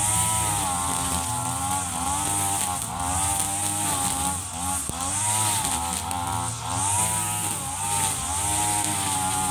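Mitsubishi TU33 backpack brush cutter's two-stroke engine running hard while cutting tall grass, its pitch sagging and recovering every second or so as the line meets the grass. A steady high whine runs over the engine note.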